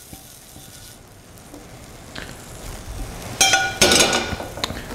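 Faint sizzle of sliced beef, peppers and onions in a hot skillet, then, from about three seconds in, a run of sharp metallic clanks and clinks of tongs and skillet against metal.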